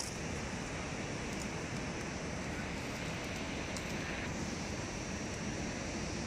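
Steady rushing outdoor noise, wind on the microphone, even and unbroken, with no distinct knocks or calls standing out.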